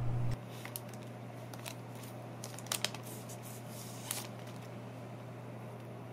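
Faint clicks and plastic crinkles from handling a smartphone and peeling back its clear protective screen film, the sharpest ticks about three and four seconds in, over a low steady hum.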